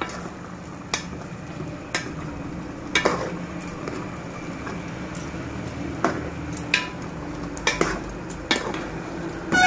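A steel spoon stirring chicken and gongura curry in a metal pot, scraping through the curry and knocking against the pot every second or so.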